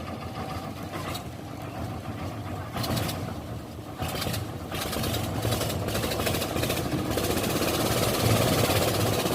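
Diesel engine of heavy farm or earth-moving machinery running steadily. It gets louder from about four seconds in, as if revved or drawing nearer.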